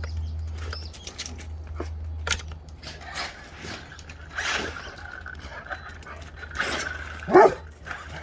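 Excited dog whining and scrabbling, with one loud bark near the end, over a steady low hum.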